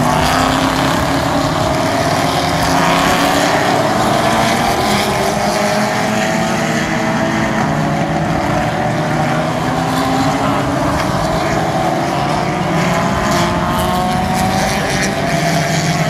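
Several vintage racing car engines running hard as a group of cars passes, their overlapping engine notes rising in pitch as they accelerate.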